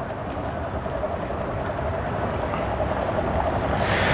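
Outboard motor of a center-console boat running at low speed, a steady drone that grows steadily louder as the boat approaches.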